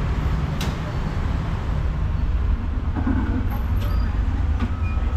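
Busy street ambience: a steady low rumble of traffic, with a few sharp clicks and knocks.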